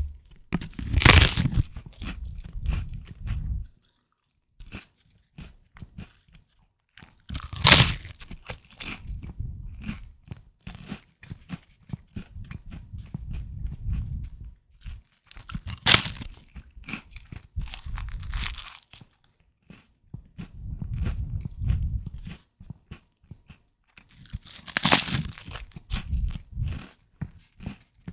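Someone eating puffed rice: four loud crunching bites, each followed by a few seconds of crisp, crackly chewing, with short pauses between mouthfuls.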